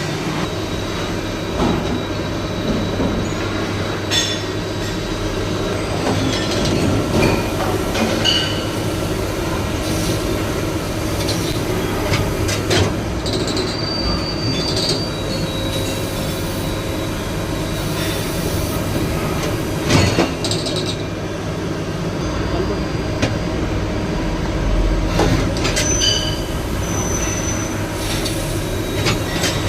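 CNC machine running: a continuous mechanical noise with brief high-pitched squeals and occasional sharp clicks, the loudest knock about two-thirds of the way through.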